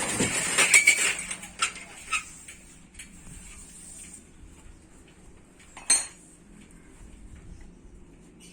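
Hard objects, likely metal tools, clattering and clinking for about a second, then a few light clicks and one sharp knock about six seconds in.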